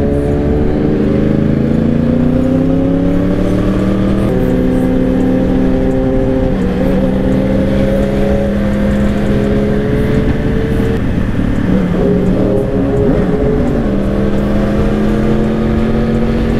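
Yamaha R1's inline-four engine running at speed on a highway. Its pitch rises for the first few seconds, drops suddenly at an upshift about four seconds in, then holds fairly steady with a few small changes, over a low rush of wind noise.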